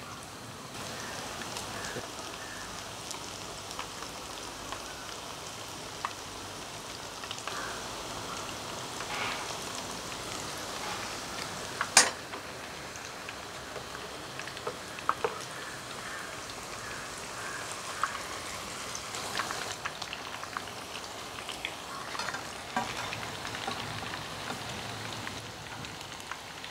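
Onion chicken vada fritters deep-frying in hot oil in a pan: a steady sizzle dotted with small crackles and pops. One sharp click about halfway through is the loudest moment.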